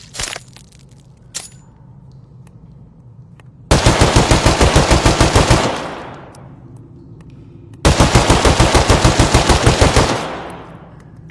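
Submachine gun firing two long full-auto bursts of about two seconds each, roughly ten shots a second, each burst ending in a fading echo. A couple of sharp clicks come before the first burst.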